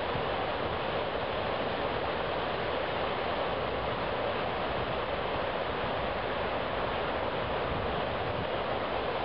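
Steady rush of a high river pouring over a low concrete dam in a broad white sheet, an even, unbroken sound of falling water.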